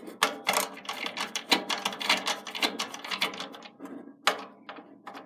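A small hand screwdriver turning a motherboard screw: quick, irregular clicking and scraping, several clicks a second.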